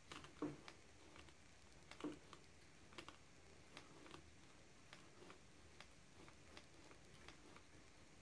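Faint, irregular light clicks and taps from hands handling a carbon-fibre rod grip while wiping excess glue off it, with two louder knocks in the first two seconds.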